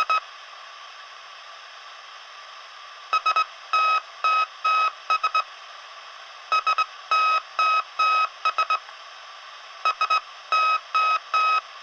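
SOS distress signal in Morse code: a beeping tone keyed three short, three long, three short. It repeats about every three and a half seconds, with pauses between repeats, over a steady radio-like static hiss.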